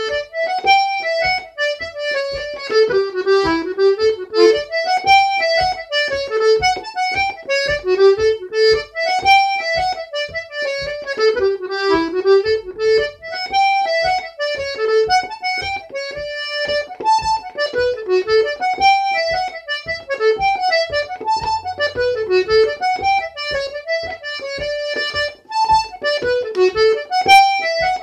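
Solo button accordion playing a jig: a quick, lilting melody in repeating phrases over a steady pulse of bass notes.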